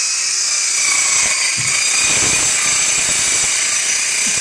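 Handheld electric circular bone saw running steadily, its blade cutting through the rib bone of a thick ox rib steak, with a dense high-pitched noise.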